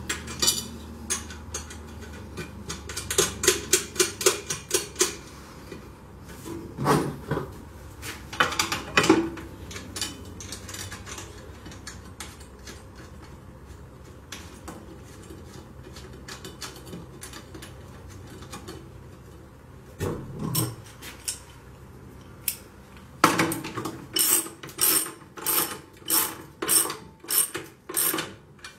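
Metal clinking and clicking as a steel battery hold-down bracket, anchor bolts, nuts and washers are handled and fitted in a sheet-metal battery box. The clinks come in scattered clusters, with a long run of quick, evenly spaced clicks near the end.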